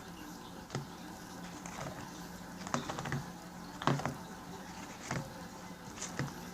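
Homemade slime being squished and pulled by hand: a handful of irregular, short sticky pops and clicks, the loudest about four seconds in, over a faint steady hum.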